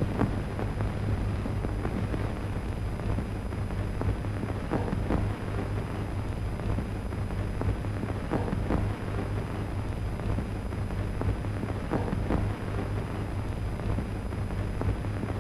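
Surface noise of a worn 1930s film soundtrack between lines of dialogue: a steady low hum and hiss with scattered crackles and pops.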